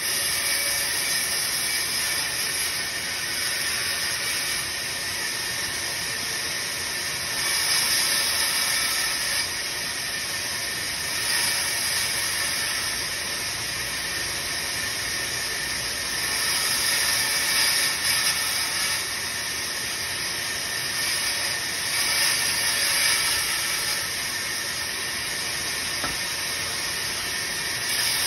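Band saw running and cutting a wooden cricket bat blank: a steady hiss that swells louder several times.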